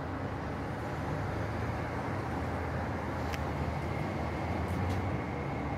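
Steady low rumble of city traffic noise that slowly grows louder, with a faint high whine joining it about halfway through and a couple of light clicks.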